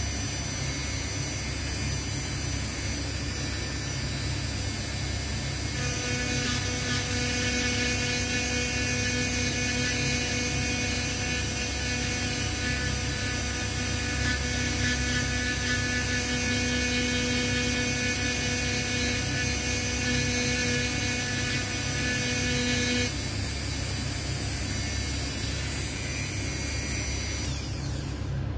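A small electric power tool's motor runs steadily. A pitched whine joins in about 6 seconds in and drops out around 23 seconds. Just before the end the motor winds down and stops.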